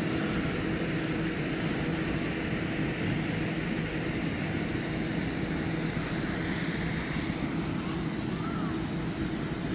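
Steady mechanical drone: a constant hum under a rushing noise, holding the same level and pitch throughout.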